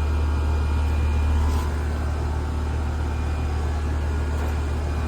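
Outdoor air-conditioner condensing unit running: a steady low hum from the compressor and condenser fan, dropping slightly in level about a second and a half in. The unit is running normally again after a failed capacitor was replaced.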